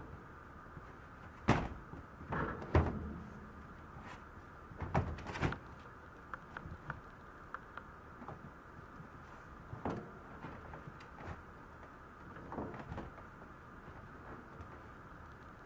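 Scattered clunks and knocks of a round plastic tray being nosed and pushed about by a Maltese puppy, bumping the floor and the wire playpen. Several loud knocks come in the first six seconds, then a few softer ones about ten and thirteen seconds in.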